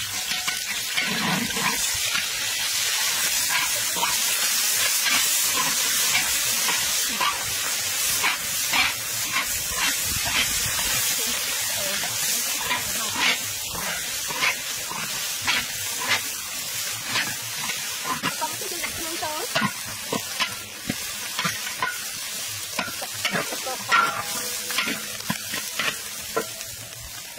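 Chopped shallots and chili paste sizzling in hot oil in a large metal wok, stirred with a metal spatula that scrapes and taps against the pan. The sizzle is strongest in the first half; the spatula's scrapes and taps stand out more later on.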